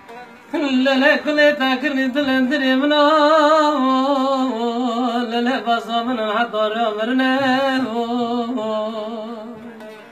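A man singing a Kurdish lament (ağıt) in long, held, ornamented notes with a wavering pitch, to a bağlama (saz). The singing starts about half a second in and fades near the end.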